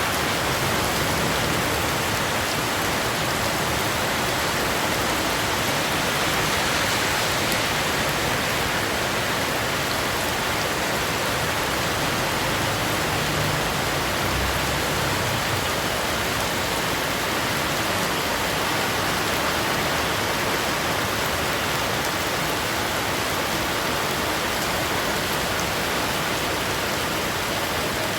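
Heavy rain falling and splashing on surfaces, a steady dense hiss. A brief low rumble comes about halfway through.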